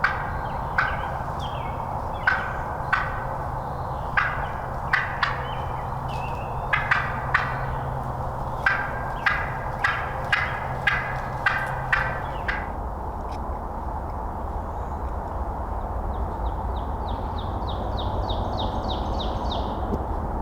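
A run of sharp, separate turkey calls, about seventeen notes at irregular spacing, stopping about twelve seconds in. Near the end comes a quick, high trill of about a dozen notes.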